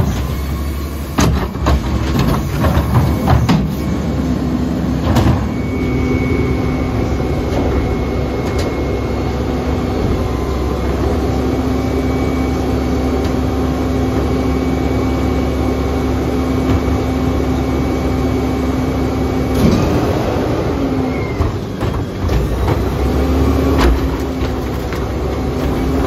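Mack LEU garbage truck's engine running, with a steady hydraulic whine from about 4 seconds in until it cuts off sharply about 20 seconds in, then briefly again near the end. Knocks and clacks of plastic wheeled carts being handled and tipped into the Curotto-Can carry can come near the start and near the end.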